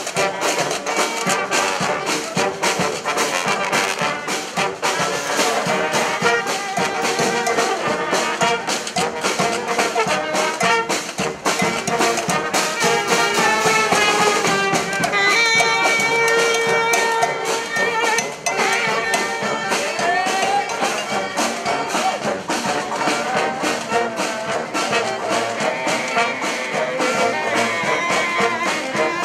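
Street brass band playing live: horn lines over a steady percussion beat.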